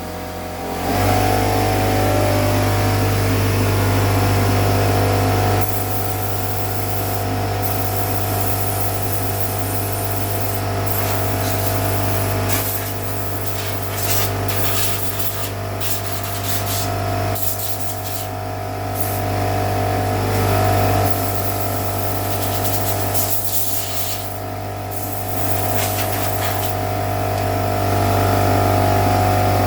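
A motor starts about a second in and runs steadily, with a rushing air hiss over it that cuts out briefly several times, as sawdust is blown or sucked off the bandsaw.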